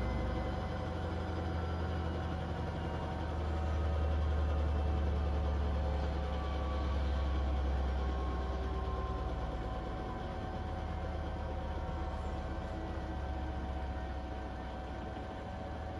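Beko WTK104121W washing machine running through its first intermediate spin on the Eco 40-60 programme at 60°C. It gives a steady low hum with several steady tones above it, slowly getting quieter toward the end.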